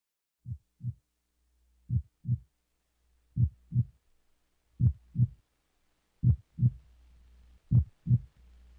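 Heartbeat sound effect: six slow 'lub-dub' double thumps, a pair about every second and a half, growing louder over a faint low hum.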